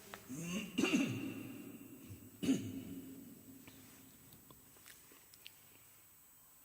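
Short voice sounds from listeners calling out in the pause between recited verses, about half a second in and again at about two and a half seconds, over the fading echo of the last recited phrase; then a low hush with a few faint clicks.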